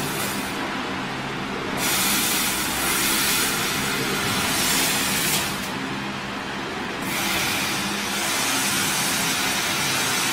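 Hissing from the cutting nozzle of a 150 W CO2 laser cutter as it cuts 1 mm stainless steel sheet, dropping out briefly twice, about half a second in and around six seconds, before coming back. A steady low machine hum runs beneath.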